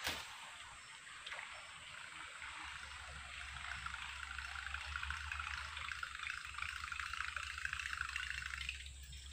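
A sharp click as the cast is made, then a buzzbait retrieved across the water surface: its blade churns the water in a raspy, rapidly sputtering buzz for about six seconds, stopping shortly before the end.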